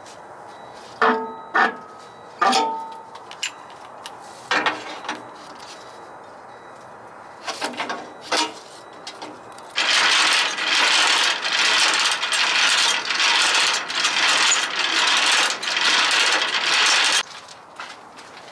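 Metal clanks of trailer air-line gladhands being coupled, ringing briefly, followed by a few lighter clicks. Then a container chassis's landing gear is cranked up by hand: a loud rough grinding that pulses about once a second with each turn of the crank, for about seven seconds before stopping.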